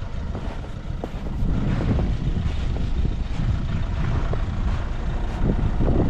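A steady, low rumble with scattered clicks and knocks.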